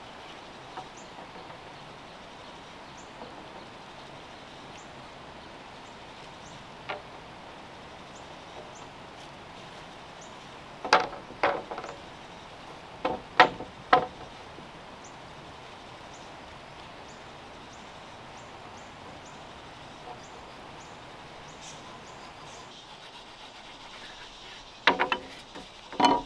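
Sharp knocks of bamboo poles and timber being set down and shifted on log beams: a single knock, then a cluster of about five a little before halfway, and two more near the end. Under them a steady outdoor background with faint high chirps.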